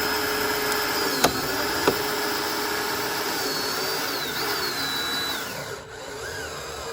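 Power drill running at steady speed, driving a screw that has no pre-drilled pilot hole. Its pitch dips briefly with two sharp clicks about a second in, dips again near four seconds, then winds down and stops about five and a half seconds in.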